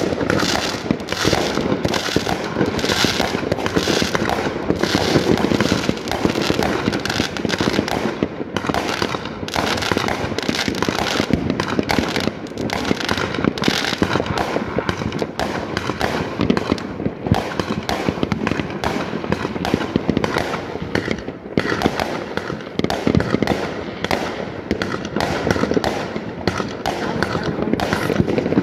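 Fireworks going off all over the surrounding area: aerial shells bursting and crackling, many overlapping bangs per second, some close and some distant, in an unbroken barrage.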